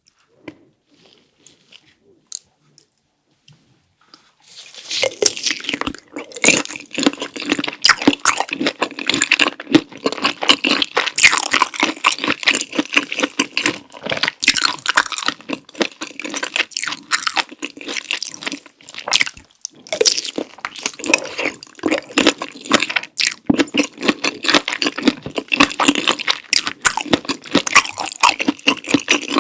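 Close-miked eating sounds: wet, sticky chewing and slurping of cream-sauce fire noodles and sausage with cheese sauce. A few faint clicks, then the chewing starts about four seconds in and goes on without a break.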